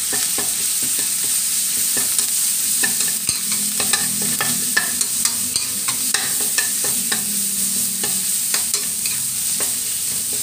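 Blended chili-garlic paste sizzling in hot oil in a steel wok while it is fried until fragrant. A steady hiss of frying runs under frequent irregular scrapes and clicks of a metal spatula against the wok as the paste is stirred.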